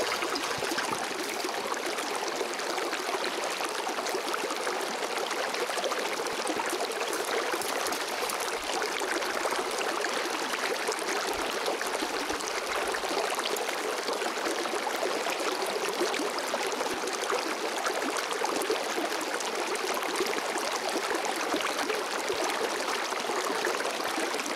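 Shallow river running over rocks close by: a steady rush of flowing water.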